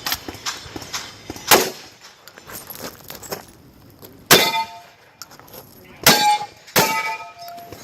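Steel shooting targets struck by shotgun fire, clanging and ringing. There are four sharp strikes: one about a second and a half in, one past the middle, and two close together near the end. The last three ring on briefly with a metallic tone.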